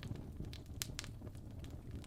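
Fire crackling: scattered sharp pops, two of them louder about a second in, over a low steady rumble of flames.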